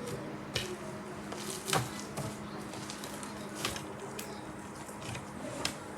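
Pink ice slime being handled, giving a series of short, sharp crackles and pops at irregular moments, about six in all.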